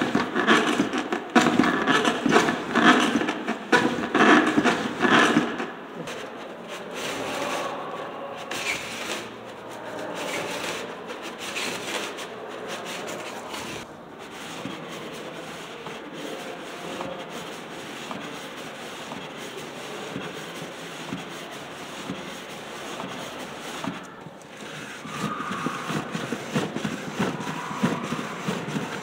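Hand-cranked cardboard automata turning, their cardboard cams and axles rubbing and scraping against the box. The scraping is loud and rhythmic for the first few seconds, settles into a quieter, steadier rubbing, breaks off briefly, and grows louder again near the end.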